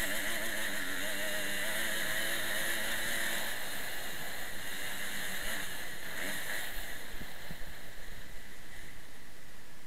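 Kawasaki KX motocross bike engine running, its note wavering with the throttle, heard through heavy wind rush on a helmet-mounted camera. About three and a half seconds in the engine note fades, leaving mostly wind rush with a few low thumps.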